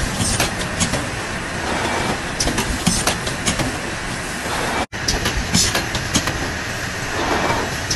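Automatic turntable bottle-filling machine running: a steady mechanical noise with frequent sharp clicks and short high hisses from its pneumatic air-blowing and filling heads and the indexing bottle conveyor. The sound breaks off for an instant about five seconds in.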